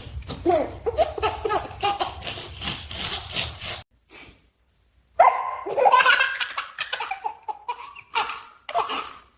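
Baby laughing hard in repeated bursts of belly laughter, breaking off for about a second near the middle and then starting up again louder.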